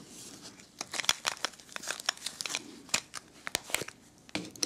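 Clear plastic sleeve crinkling and crackling in irregular bursts as coins in plastic capsules are drawn out of it by gloved hands.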